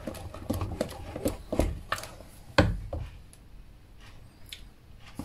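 A mixing utensil knocking against a bowl as thick, wet brownie batter is beaten by hand: a run of irregular knocks for about three seconds, then only a few faint ticks.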